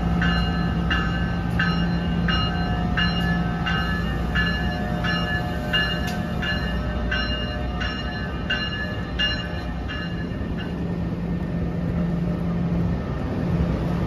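A departing NJ Transit multilevel train's bell rings steadily at about three strikes every two seconds and stops about ten seconds in. Under it run the steady low hum and rumble of the train's cars rolling past.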